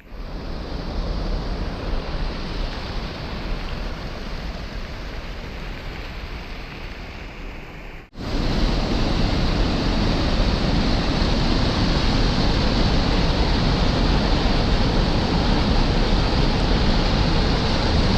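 Steady rush of flowing water. It breaks off for an instant about eight seconds in and comes back louder.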